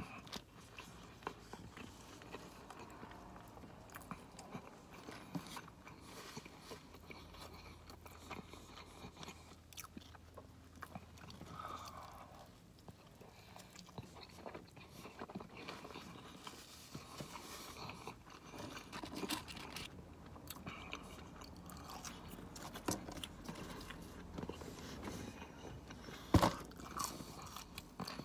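Close-miked biting and chewing of a crispy buffalo chicken sandwich with bacon: soft crunches and mouth sounds, quiet throughout, with one sharper click near the end.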